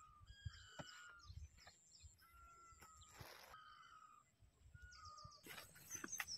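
Faint birdsong: short whistled notes repeated several times over quiet outdoor background, with a brief burst of noise about three seconds in.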